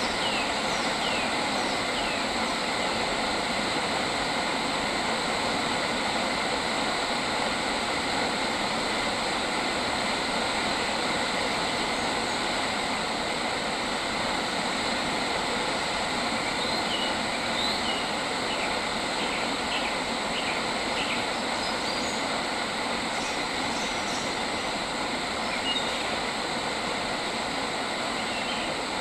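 Steady rushing outdoor noise with faint steady tones in it, over which small birds give short downward-sweeping chirps at the start and again a little past the middle.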